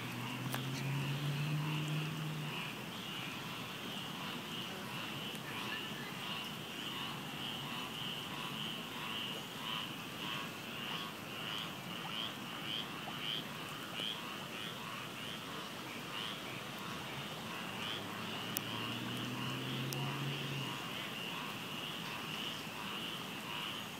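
Frogs calling in a steady chorus of repeated high, pulsing calls over the hiss of falling rain. A low hum rises briefly twice, near the start and about nineteen seconds in.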